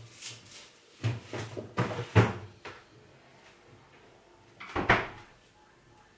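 A series of household knocks and clatters: a few light ones at first, a cluster of several between one and three seconds in, and another loud one about five seconds in.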